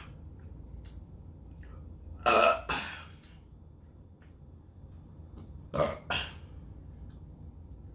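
A person burping loudly twice, about two seconds in and again near six seconds, each burp coming in two quick parts.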